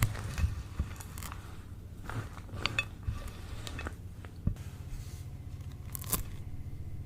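Close-up crunching and crackling as a crisp material is pressed or cut, with sharp irregular clicks. A steady low hum comes in about two thirds of the way through.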